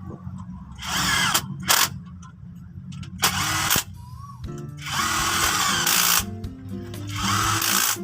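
A power tool run in five short bursts, each a second or less, during work on the engine's cylinder head. Background music plays underneath.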